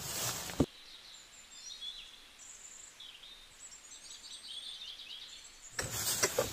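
Small birds chirping in many short, high calls over a quiet background. A loud rustling noise cuts off suddenly about half a second in and returns abruptly near the end.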